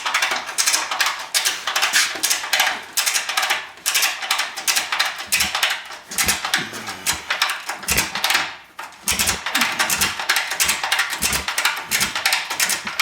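Ratchet strap being cranked in repeated strokes, its pawl clicking rapidly in quick runs with brief pauses, as it draws an axle up into place. There are a few low thuds in the second half.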